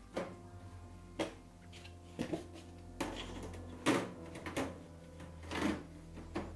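Side panels of a desktop PC cabinet being fitted and slid shut, giving a series of sharp knocks and clunks, about nine spread over several seconds.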